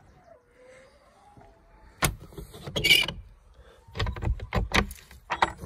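Coop hatch and wooden door being handled: a sharp bang about two seconds in, a short clatter, then a quick run of knocks and bangs near the end as the truck-cap glass hatch is shut and a wooden coop door is unlatched and opened.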